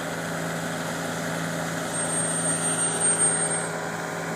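Backhoe's diesel engine running steadily as it works, getting a little louder from about two seconds in, with a thin high whine over that stretch.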